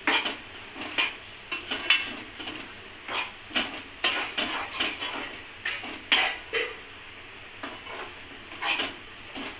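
Metal spoon stirring a thick coconut-and-jaggery filling in a metal kadhai, knocking and scraping against the pan in an irregular rhythm, a few strokes a second.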